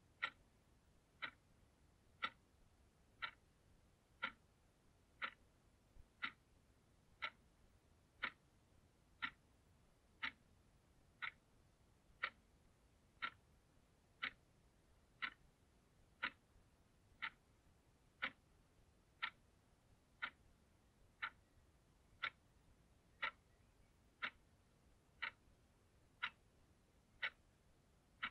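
Blue analog alarm clock ticking steadily, one sharp click about every second.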